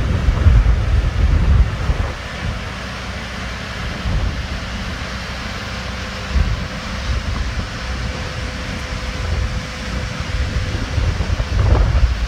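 Wind buffeting the microphone in a heavy, uneven rumble over the steady running of grain trucks and a grain auger, with a faint steady hum underneath.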